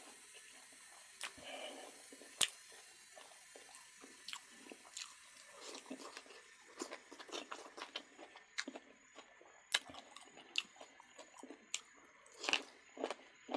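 Close-up eating sounds of a person biting and chewing duck: irregular sharp crunchy clicks and mouth noises, some louder than others.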